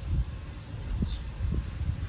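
Wind buffeting the microphone in gusts, with a couple of light knocks about a second and a second and a half in; the planer motor is not running.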